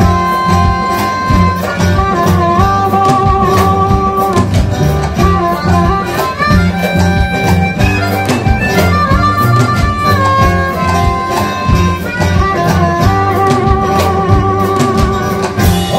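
Live blues band playing an instrumental passage: a harmonica leads with held, wavering notes and bends over guitar, double bass and a steady drum beat.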